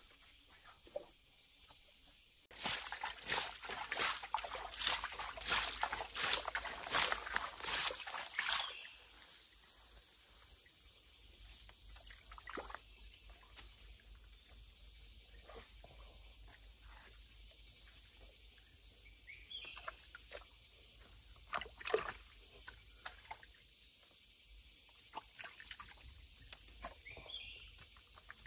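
Water splashing and sloshing in an irregular run for about six seconds, then only a few scattered splashes. A high chirp repeats steadily, a little less than once a second, underneath.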